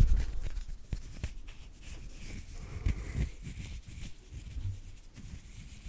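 Fingers rubbing on a microphone's grille right at the microphone, loud and rumbling at first. After about a second this gives way to quieter hand sounds: light finger clicks and soft rustles close to the microphone.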